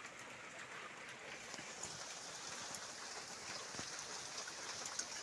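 Steady soft hiss of water, with scattered faint ticks.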